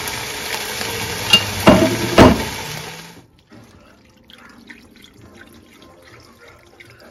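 Onion and ham bone sizzling in a hot enameled Dutch oven, with two loud knocks about one and a half and two seconds in. The sizzle cuts off after about three seconds, and vegetable broth is then poured quietly from a carton into the pot.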